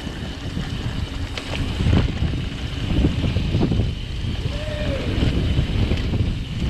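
Mountain bike rolling fast down a dirt singletrack: tyre rumble and wind buffeting the microphone, with the bike rattling and knocking over bumps in the trail.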